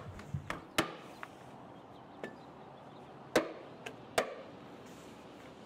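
Flashing being handled and pressed onto plywood sheathing: a handful of separate sharp taps and clicks. The loudest come about a second in, a little over three seconds in, and about four seconds in.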